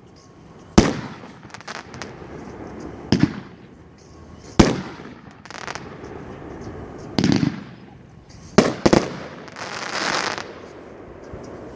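A 500-gram consumer fireworks cake (World Class One Bad Mother-in-Law) firing, with about seven sharp bangs of bursting shells at uneven gaps of one to three seconds. About ten seconds in comes a second-long rush of noise.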